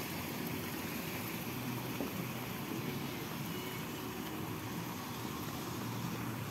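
Steady outdoor background noise: a low rumble under a hiss, with no distinct event.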